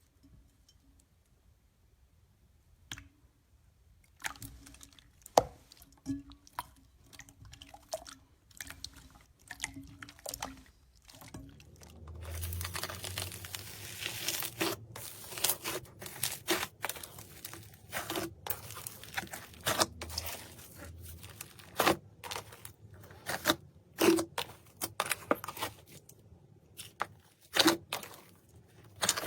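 Slime being squeezed, poked and pulled apart by hand, making sticky pops, squishes and crackles. It starts after a few quiet seconds, and there is a rougher tearing stretch about halfway through.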